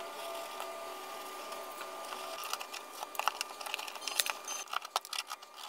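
Faint steady hum. From about halfway, a run of light scratches and small clicks from hand work at a drywall surface where a box outline has been traced.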